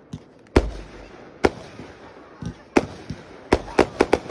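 Aerial fireworks bursting overhead: a string of sharp bangs, about eight in all, the loudest about half a second in and several in quick succession near the end.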